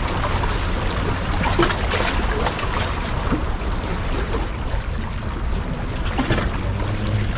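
Sea water washing and trickling against a rocky shoreline: a steady rushing with scattered small splashes and a heavy low rumble.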